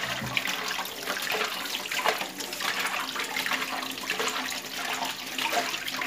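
Kitchen tap running into a stainless steel pot in the sink, the water splashing as a hand rubs boiled beef tripe in it to wash off the fat.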